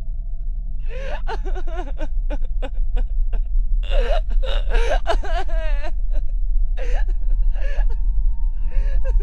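A person's voice groaning, gasping and wailing in several bursts, with one wavering wail about five seconds in, over a low steady drone that slowly grows louder.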